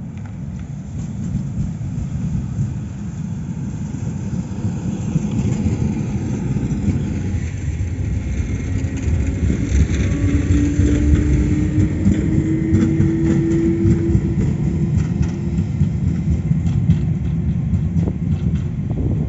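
A tram passing along the track and pulling away: a steady rumble of wheels on rails that swells in the middle, with a traction motor whine that rises slowly in pitch.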